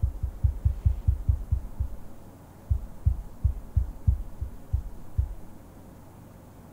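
A run of dull, very low thumps, about five a second, that pause briefly about two seconds in, resume more slowly and stop about five and a half seconds in.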